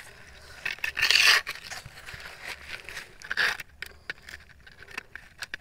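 Rustling and scraping of grass and soil being handled at a crab burrow, in short noisy bursts, the loudest about a second in and another about three and a half seconds in.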